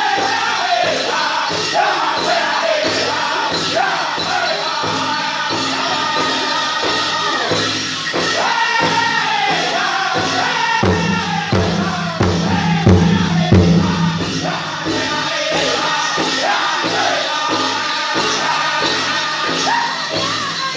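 Powwow drum group singing a chicken dance song in falling phrases over a steady beat on the big drum; the drumming grows heavier for a few seconds just past the middle.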